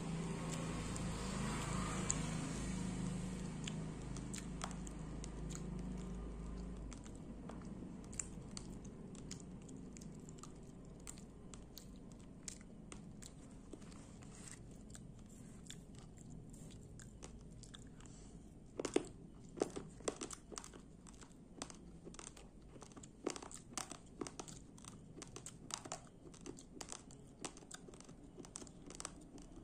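Raw uncooked rice grains being crunched and chewed: a long run of sharp, irregular crunches, with the loudest ones about two-thirds of the way through. A low rumbling noise runs under the first several seconds and then fades.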